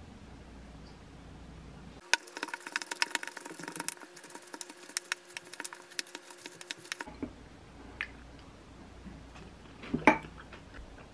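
Wooden spoon stirring and scraping bibimbap in a glass mixing bowl: a dense run of quick clicks and scrapes for about five seconds, then a few scattered taps and one sharp knock near the end.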